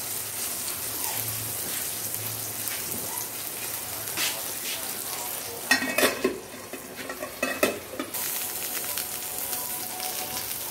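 Whole eggplants frying in hot oil in a pan, with a steady sizzle. About six seconds in, a metal pan lid clanks against a pan a few times, with one more clank a moment later.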